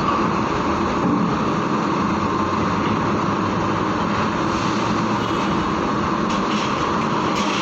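Heavy tronton truck's diesel engine running steadily as the truck moves.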